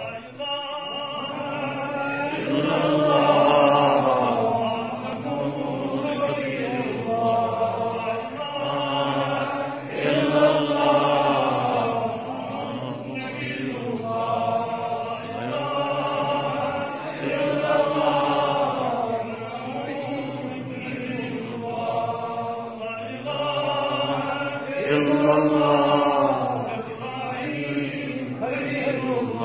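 A man's voice chanting an Islamic religious address in long melodic phrases of a few seconds each, with short pauses for breath between them.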